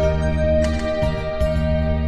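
Instrumental backing music of a slow pop song with no singing: a held high note over low bass notes that change at an even, unhurried pace.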